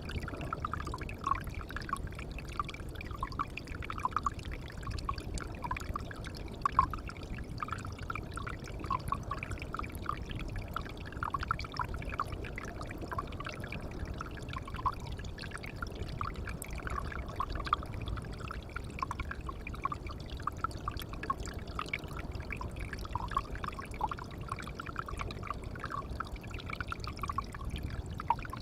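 Water pouring and trickling into a pond: a steady rush with a constant patter of small splashing plinks.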